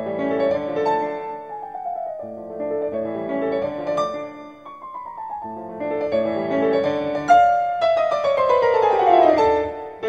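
Background piano music: flowing notes broken by quick falling runs, the longest and loudest near the end.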